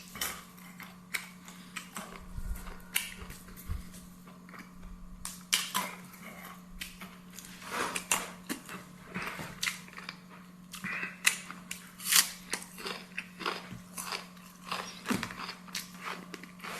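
A person chewing and biting food close to the microphone, with irregular crunches and wet smacks. A steady low hum runs underneath.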